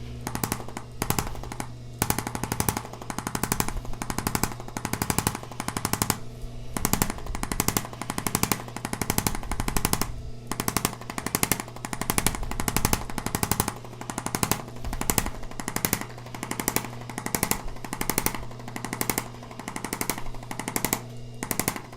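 Handheld percussive massage tool hammering rapidly on a patient's back in bursts of fast knocks with short pauses, over a steady motor hum.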